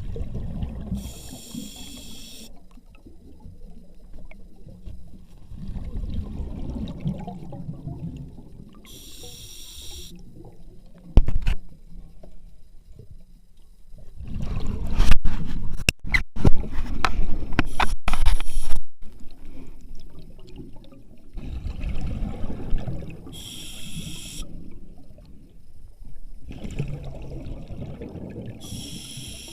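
Underwater breathing through a scuba regulator: slow breaths, each a short hiss and a rush of exhaled bubbles every several seconds. A stretch of loud knocks and scraping comes about halfway through.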